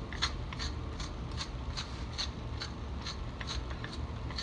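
A salt shaker being shaken over raw ribeye steaks in a steady rhythm, about two to three shakes a second, over a low steady hum.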